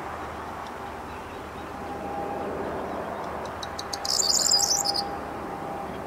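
Corn bunting singing one song about four seconds in: a few quick ticks speeding up, then a short, high jangling trill like a shaken bunch of keys, lasting about a second.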